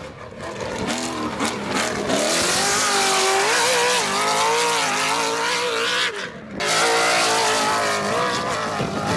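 Off-road race vehicle's engine running hard at high revs, its pitch rising and falling with the throttle. It drops out briefly about six seconds in and comes straight back.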